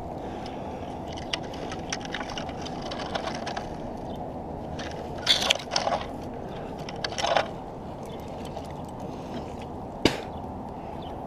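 A tree climber moving among conifer limbs and climbing rope: a few short scrapes, cracks and rustles of bark, needles and gear, bunched a little past halfway and once more near the end. Under them runs a steady low rumble of background noise.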